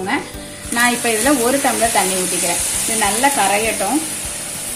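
Jaggery melting in water in a non-stick pan on the stove, giving a steady sizzling hiss that starts about a second in as it heats toward a boil.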